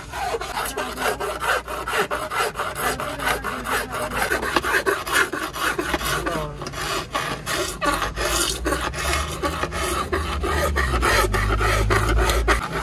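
A flat metal blade scraping across the red plastic lens of a car tail light in quick, repeated back-and-forth strokes, several a second.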